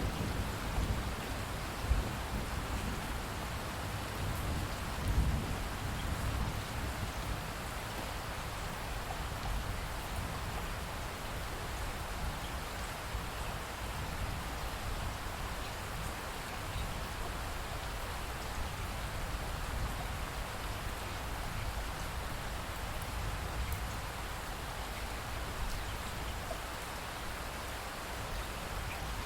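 Steady rain falling on a surface, with low thunder rumbling in the first several seconds, peaking twice, before the rain carries on alone.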